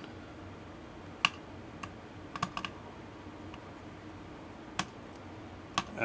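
Scattered light clicks and ticks, about eight of them, the sharpest just over a second in, from a small screwdriver turning down the spring-loaded screws of a mini PC's CPU heatsink.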